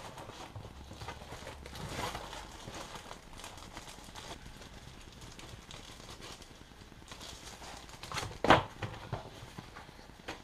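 Cardboard mailer and plastic print sleeve being handled: scattered soft rustles, scrapes and knocks as flaps are folded back and the insert lifted out, with a louder sharp handling noise about eight and a half seconds in.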